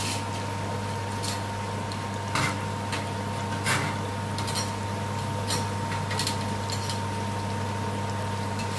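Chips deep-frying in hot oil in a deep steel pan: a steady sizzle with scattered crackles and pops, over a constant low hum.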